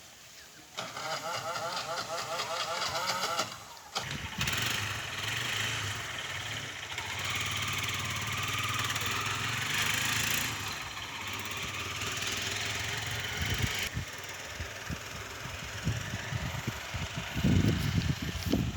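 An engine cranks with a wavering whir and catches, then runs steadily for about ten seconds before easing off, with a few low knocks near the end.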